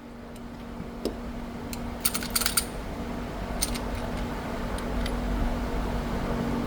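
Motorized range target carrier running, a steady hum that grows louder as it brings the paper target back. There are a few light metallic clinks, clustered about two seconds in.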